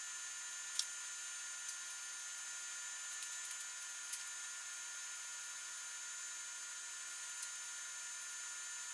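Electric shop fan running steadily: an even hiss with a faint high-pitched whine, and a couple of faint light clicks about a second in and near the middle.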